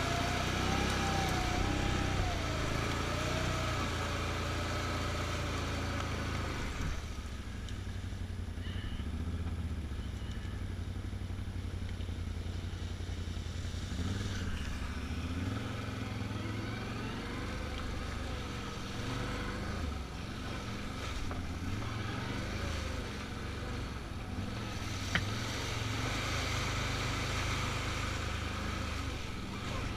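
Can-Am Outlander ATV engine running under a rider on a muddy trail, its note rising and falling with the throttle. A higher hiss over it dies down about seven seconds in.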